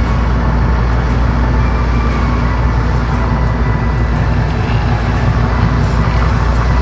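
Steady road and engine rumble inside a moving vehicle's cabin.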